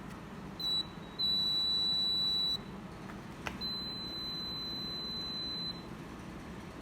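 The alarm buzzer of a home-made laser light security alarm beeps with a high, steady tone three times: a short beep, then two longer ones of about one and a half and two seconds. This alarm sounds when the laser light stops falling on its light-dependent resistor. There is a click between the second and third beeps.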